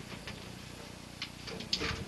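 A few light knocks and clicks, with a louder clatter near the end, as a plastic carport roof panel is lifted and handled against the aluminium frame and stepladder.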